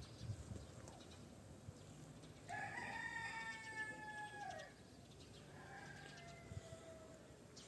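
A rooster crowing: one long call of about two seconds that holds its pitch and then drops at the end, followed a little later by a fainter, shorter crow.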